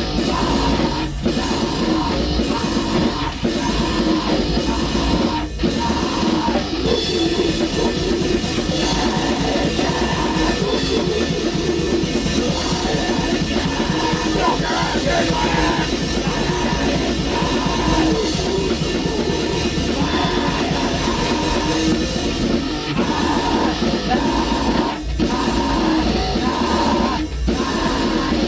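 Black metal band playing live at rehearsal: a dense, continuous wall of distorted instruments over a drum kit, broken by a few brief stops near the start and again near the end.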